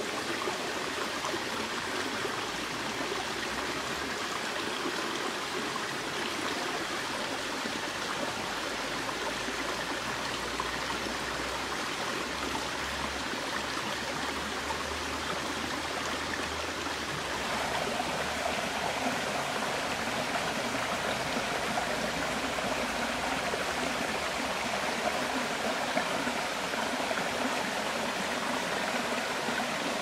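Shallow forest stream running over rocks, a steady rush of water that grows a little louder and brighter a bit past halfway.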